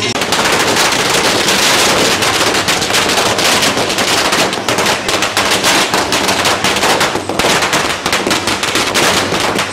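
Firecrackers going off on the ground in a rapid, unbroken crackle of bangs.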